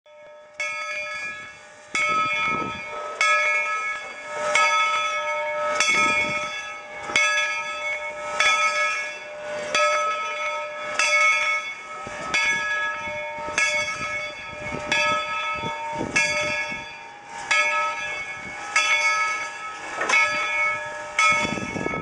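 Steam locomotive's bell ringing in a steady rhythm, struck about every second and a quarter, with a low rumble now and then underneath.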